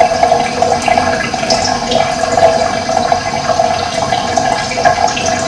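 Running water gurgling steadily, with a few short, high bird chirps over it.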